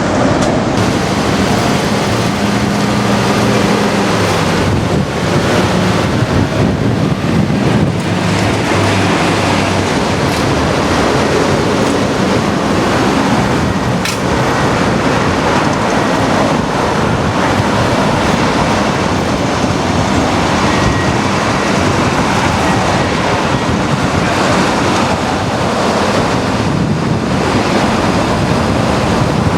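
Steady, loud outdoor noise of passing traffic, with wind on the microphone.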